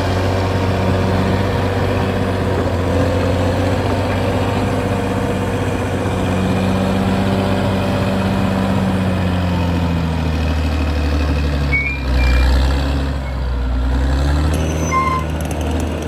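Caterpillar D6R XL bulldozer's diesel engine running steadily. About ten seconds in the engine note shifts and swells, peaking briefly about twelve seconds in, and a few short high tones sound near the end.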